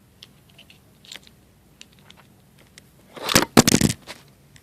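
A few faint clicks of small plastic parts, then about three seconds in a loud burst of cracking and crunching, less than a second long, as the plastic casing of a fidget cube is pried apart.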